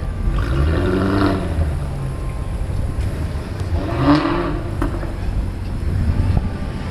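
Porsche 918 Spyder's 4.6-litre V8 running with a steady low rumble. It swells twice in short revs that rise and fall in pitch, about half a second in and again about four seconds in.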